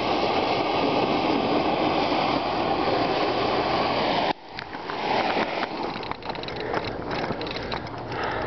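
Handheld gas torch hissing steadily as it heats a pile of thermite, cutting off suddenly about four seconds in as the thermite ignites. After that, the burning thermite gives a rougher hiss with scattered sharp crackles and clicks.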